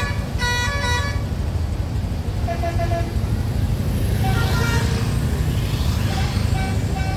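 Tour bus's multi-note basuri "telolet" horn playing a short tune of stepped notes, loudest in the first second, with fainter horn phrases following a few times later. A low engine and traffic rumble runs underneath.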